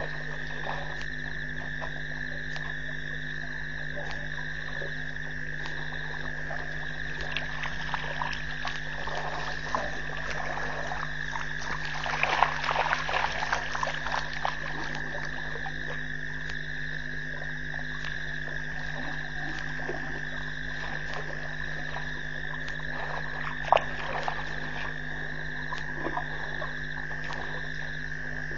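Frog chorus at a waterhole at night: a steady high trill with scattered croaks and clicks, busiest about halfway through, and one sharp click late on, over a low steady hum.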